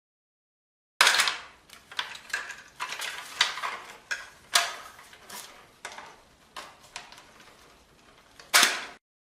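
A string of sharp clicks and knocks of hard parts being handled, about a dozen over eight seconds, the loudest about a second in and another near the end.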